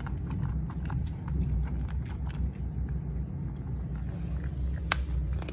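Cats crunching dry kibble from a bowl: quick irregular crunching clicks over a steady low rumble.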